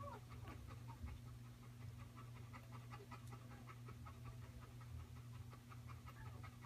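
Newborn Bernese mountain dog puppy making faint, short, quick sounds, about five or six a second, after a brief squeak at the start. A steady low hum runs underneath.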